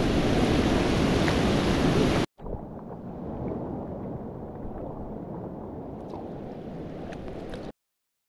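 Whitewater rapids rushing loudly past a kayak, with wind noise on the microphone, cutting off abruptly about two seconds in. A quieter steady rush with a few faint clicks follows and stops suddenly near the end.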